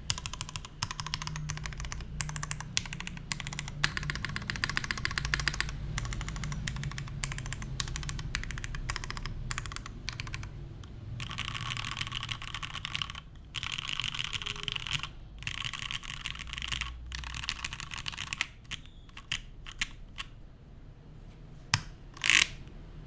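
Typing on a Monokei Kei R2 custom mechanical keyboard with lubed Cherry Hyperglide Black linear switches in an O-ring-mounted aluminium plate, with GMK keycaps: fast runs of keystrokes broken by short pauses. Near the end the typing thins to a few single keystrokes and one louder stroke.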